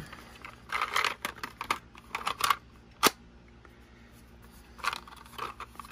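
Handling noise from a Bush PS404 personal cassette player's plastic casing: short rustles and scrapes, with one sharp plastic click about three seconds in.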